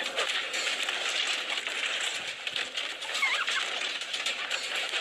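Birds chirping over a steady hiss, with a quick run of falling chirps about three seconds in and scattered light clicks.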